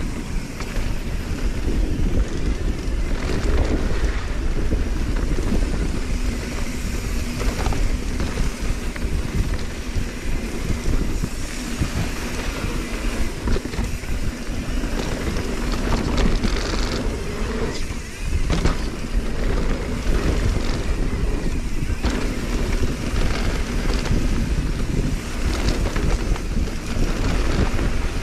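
Wind buffeting the camera microphone of a rider on a mountain bike as a heavy low rumble, mixed with the bike's tyres rolling over a dirt trail. Frequent short knocks and rattles come as the bike goes over bumps.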